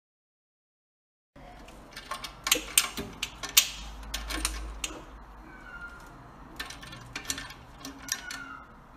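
Sharp metallic clicks and rattles of a wire cage door's latch as a cat paws at it, in two spells of fiddling. The sound starts about a second and a half in, after dead silence.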